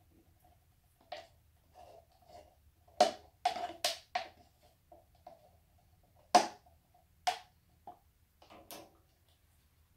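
Clear plastic cups tapping and knocking together as paint cups are handled and set against each other: a string of sharp clicks, loudest about three seconds in and again just past six seconds.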